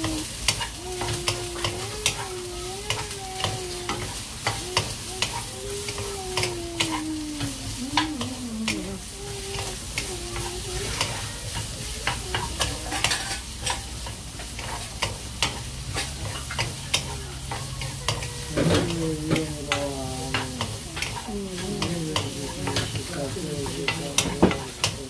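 Sliced onions sizzling in a hot non-stick frying pan while wooden chopsticks and a wooden spatula stir them, tapping and scraping against the pan many times. A wavering pitched tone is heard in the background during the first third and again near the end.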